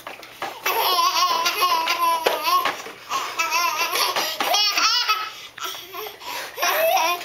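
One-year-old toddler laughing hard in three long bouts, the pitch wobbling up and down through each bout.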